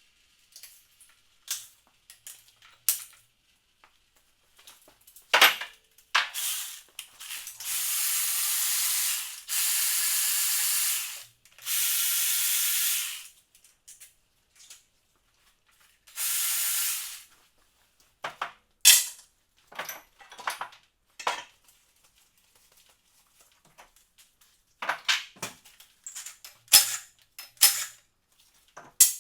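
Four bursts of hissing spray, each lasting one to two seconds, set among scattered light clicks and clanks of tools on metal engine parts.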